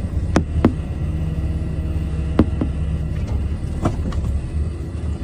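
A vehicle engine running steadily at low speed, a low rumbling hum, with a few sharp knocks scattered through it.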